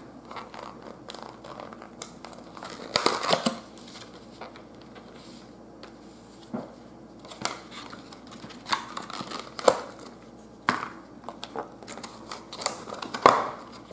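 Clear plastic bag of soft-plastic swimbaits being handled and opened, giving scattered crinkles, rustles and small clicks as baits are taken out of it.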